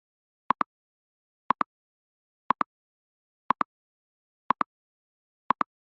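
Electronic timer ticking: a quick double tick once a second, six times, evenly spaced like a clock's tick-tock counting down.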